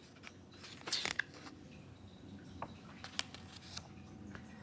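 Quiet room with a few short, faint clicks and soft rustles: a small cluster about a second in, then single clicks spread through the rest.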